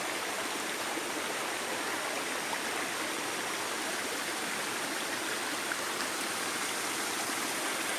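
Waterfall and the stream below it, water falling and rushing over rocks in a steady, even roar-free rush of noise.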